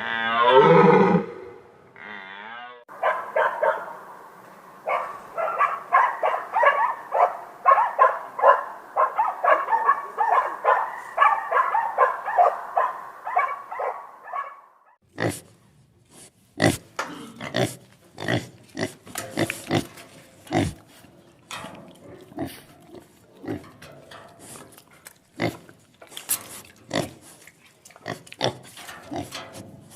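A run of animal calls: a long, deep pitched call ending about a second in, then about eleven seconds of quick repeated calls, then from halfway on a scatter of sharp clicks and short grunts.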